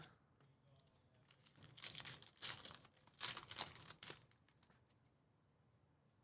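A plastic trading card pack wrapper being torn open and crinkled, a run of crackling rustles lasting about three seconds that stops a little past the middle.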